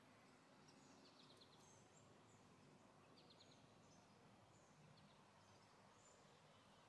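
Near silence: faint outdoor ambience with a few distant bird chirps and short trills.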